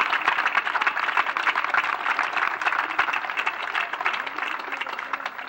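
Crowd applauding, many hands clapping, fading away toward the end.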